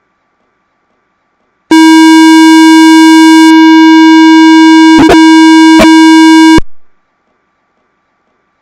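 Loud electronic beep: one steady, buzzy tone held for about five seconds, starting about two seconds in, with a few clicks near the end before it cuts off suddenly.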